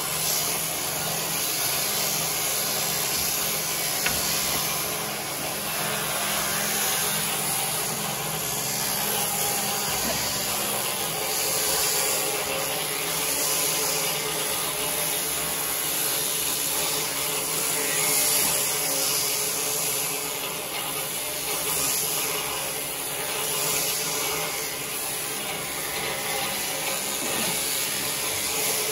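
Electric sheep-shearing handpiece running steadily as it cuts through a sheep's fleece, a continuous buzzing whir.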